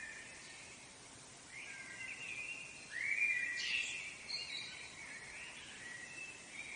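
Gulls calling: a string of short cries, the loudest about three seconds in, over faint outdoor background noise.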